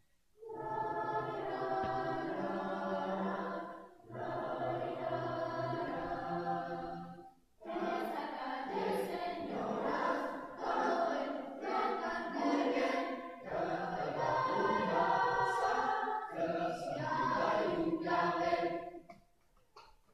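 Large mixed choir singing in long sustained phrases, with brief breaths between them. Near the end the singing stops and a few short sharp sounds follow.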